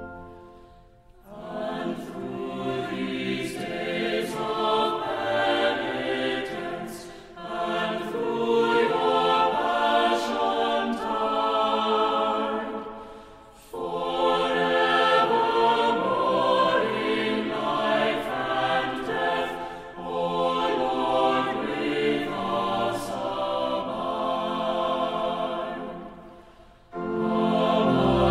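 Choral music: a choir singing slow phrases about six seconds long, with a short dip in level between them. A fuller, deeper sound comes in near the end.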